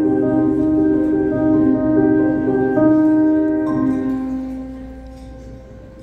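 Music from a promotional video soundtrack played over a ballroom's speakers: held, ringing notes that change every second or so, fading out over the last two seconds.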